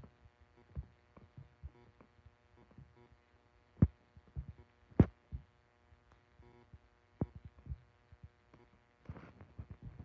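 Scattered soft thumps and clicks over a faint steady hum, with two sharper knocks about four and five seconds in.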